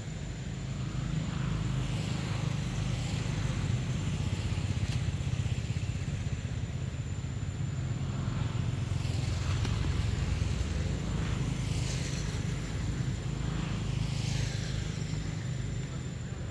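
A motor running steadily in the background, a low rumble with a few faint hissing swishes over it.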